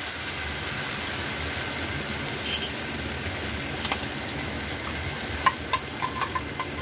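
Jaggery water bubbling and sizzling in a hot pan with roasted coconut pieces, a steady hiss. A spatula stirs it, tapping the pan twice and then clicking against it several times in quick succession near the end.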